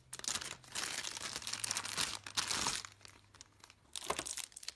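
Clear plastic packaging bag crinkling as a cable is handled in it, for about three seconds, then quieter with a few light clicks.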